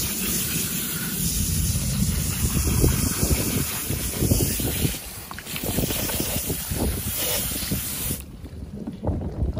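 Water hissing from a garden hose spray nozzle as it jets onto a whole flounder on a wooden cutting board, with wind buffeting the microphone. The spray cuts off about eight seconds in.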